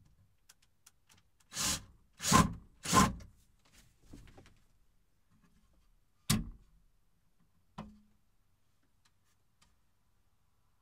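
Three short bursts of a cordless drill driving a screw into a wooden cabinet door's hinge, fitting the missing second hinge screw that lets the door sag and scrape the floor. A few seconds later, two sharp clicks from the cabinet door as it is shut and then opened.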